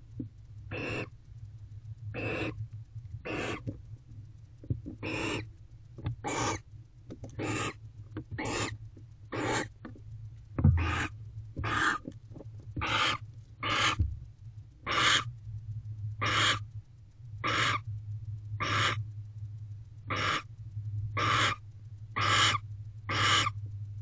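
Barn owl giving gentle courting calls: short chirping calls repeated about once a second. A steady low hum runs underneath, and there is a single thump about ten and a half seconds in.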